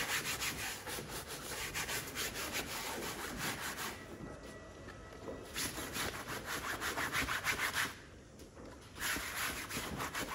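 Scrubbing brush rubbing fast back and forth over wet stroller seat fabric, working laundry-liquid suds into it. It comes in three bouts of quick strokes, easing off briefly about four seconds in and again about eight seconds in.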